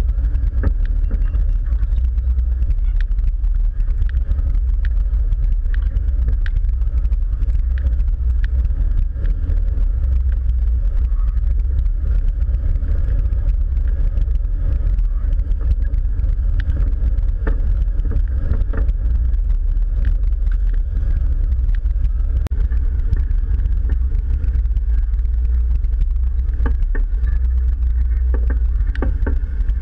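Jeep engine running at a slow trail-crawling pace, a steady low drone, with scattered clicks and knocks as the vehicle works over rocks.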